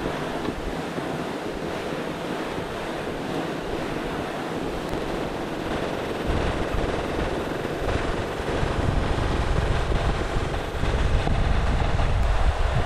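Wind buffeting the microphone over a steady rushing noise from a studded fat-tire bike and a towed load of firewood moving over snow. The low wind rumble grows heavier about halfway through and again near the end.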